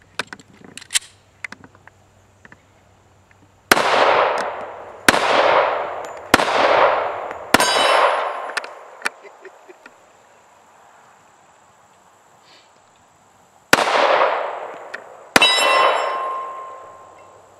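Six shots from a Smith & Wesson M&P 45 pistol in .45 ACP, each followed by a long echoing tail. Four come about a second and a half apart, and after a pause of about six seconds two more follow near the end.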